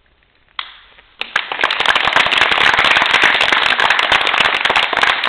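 Audience applauding: a lone clap just after the start, then loud, dense clapping from about a second in that goes on steadily.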